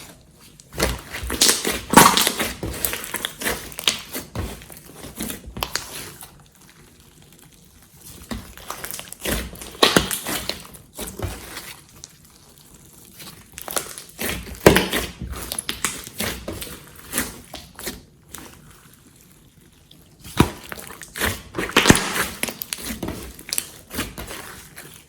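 Glossy slime being squeezed and kneaded by hand, making wet crackling and popping clicks in four bursts of a few seconds each, with short quiet pauses between.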